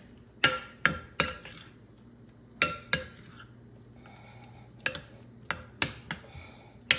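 Baked beans being stirred in a dish, the utensil clinking against the sides about ten times at irregular intervals.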